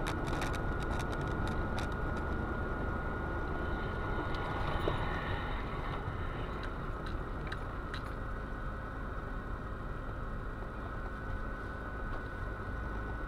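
Steady engine and road rumble inside a moving car, picked up by a dashcam, with a thin constant high tone over it and a few light clicks, most of them in the first couple of seconds.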